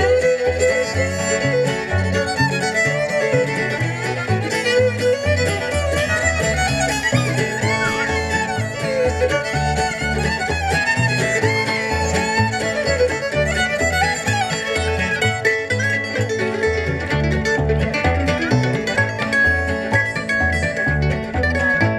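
Bluegrass string band playing a fast instrumental reel on fiddle, mandolin, acoustic guitar and upright bass. Quick fiddle lines run over a steady pulse of plucked bass notes.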